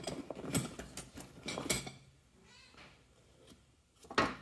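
Metal hand tools knocking and clinking as they are handled and set down, three sharp knocks. A short, wavering, animal-like call comes in the first second.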